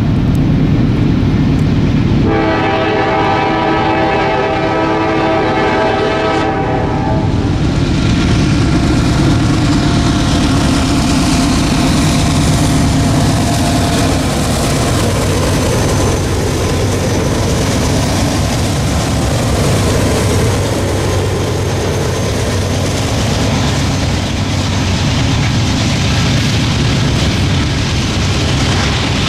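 Norfolk Southern freight train led by GE C40-9W diesel locomotives sounds its horn for about four seconds a couple of seconds in. The locomotives then run past, followed by the steady rumble and rail clatter of the freight cars rolling by.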